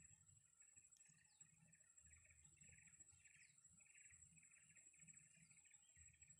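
Near silence, with faint chirping: short trilled calls repeating about twice a second and a few brief falling chirps.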